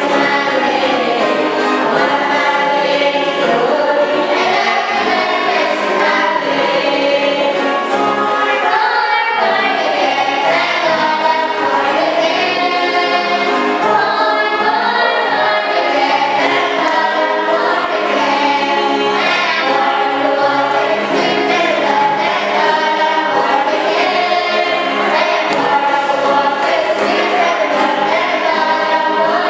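A choir singing, many voices together on held notes.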